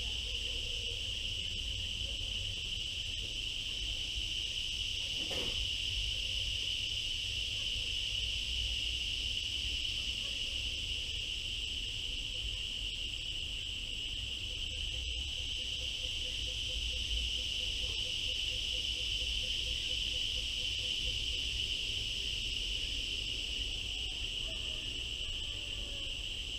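Steady, unbroken high-pitched insect chorus that holds at one pitch, over a low rumble. A single faint click comes about five seconds in.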